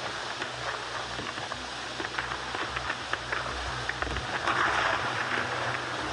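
Noisy passage of a dark-ambient synth track: a dense hiss full of scattered crackles and clicks over a steady low hum, swelling about four and a half seconds in.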